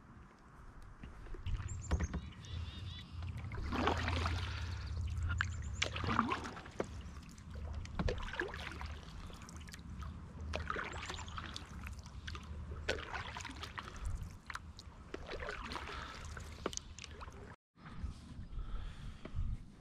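Kayak paddle strokes through calm water, a swish and splash every two to three seconds with drips and small knocks between, over a steady low rumble. The sound breaks off for a moment near the end.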